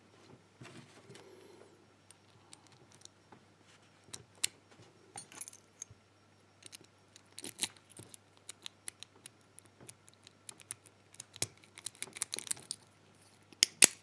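Small metallic clicks and clinks of a brass padlock being reassembled by hand, its core and shackle fitted back into the body. The clicks are scattered, with busier bursts about halfway through and near the end.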